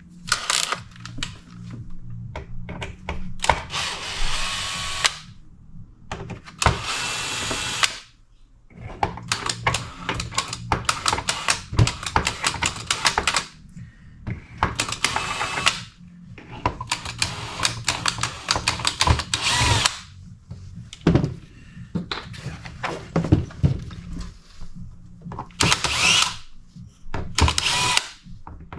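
Power driver backing screws out of a plastic blower housing, in repeated bursts of a second or two with short pauses between them. The motor whine rises and falls within each burst.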